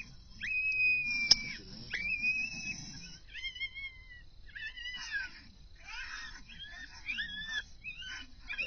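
A coyote call sounding a string of short, high whimpering cries, the lure a hunter uses to coax a hanging-up coyote closer. The first few cries start sharply and hold one pitch, and the later ones rise and fall. There is one sharp click about a second in.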